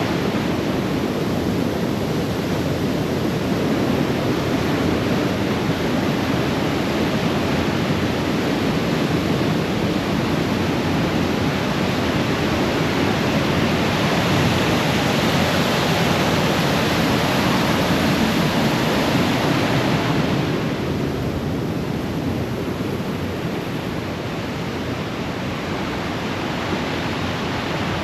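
Fast-flowing river water rushing steadily, a loud, even roar of water that eases off slightly a little after two-thirds of the way through.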